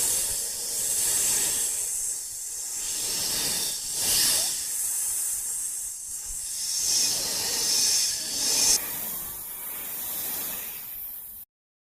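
A long hissing noise, strongest in the high end, swelling and fading unevenly, then cutting off suddenly near the end.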